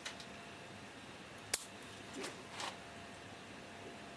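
Bonsai pruning shears snipping shoots off a Brazilian rain tree: two sharp snips about a second and a half apart, the second louder, followed by fainter handling noises.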